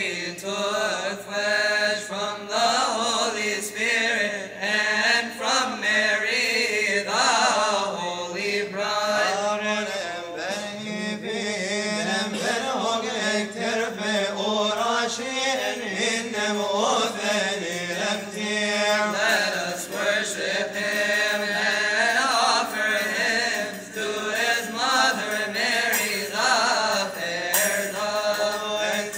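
Coptic Orthodox liturgical chant: a hymn of the Vespers and Glorification sung in a long, unbroken vocal line whose pitch winds up and down, over a steady low held tone.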